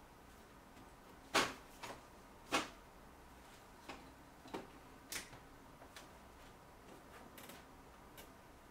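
Scattered sharp plastic clicks and taps, the loudest about one and a half and two and a half seconds in, from paper being fed into an Epson SureColor P800 photo printer.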